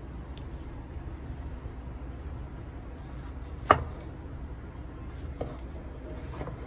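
Chef's knife slicing a tomato on a wooden chopping board: one sharp knock of the blade on the board about halfway through, then a couple of fainter cuts near the end, over a steady low rumble.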